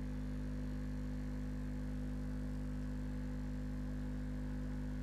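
JL Audio 10W7 subwoofer playing a steady 50 Hz test tone at low power: an even, unchanging low hum with overtones.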